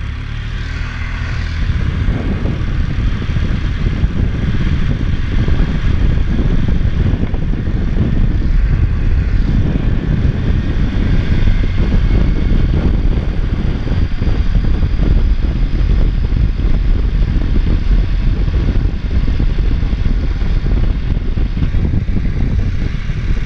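ATV engine running while riding, with heavy rough wind noise on the microphone. It grows louder over the first couple of seconds, then holds steady.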